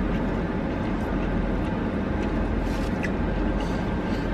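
Steady low rumble inside a car's cabin while it sits parked with the engine running, with a few faint ticks over it.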